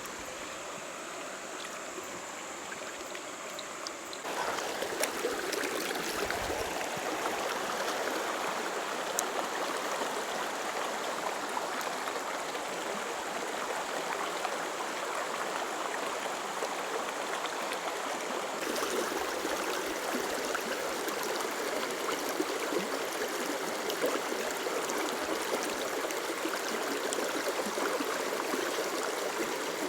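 Mountain creek water flowing steadily, a little louder from about four seconds in.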